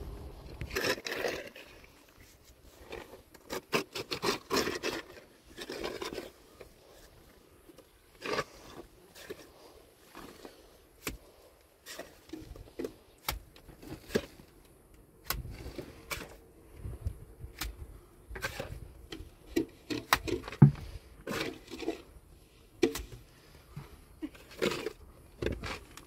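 Irregular scraping and knocking, with many sharp clicks scattered throughout and a few louder scraping stretches.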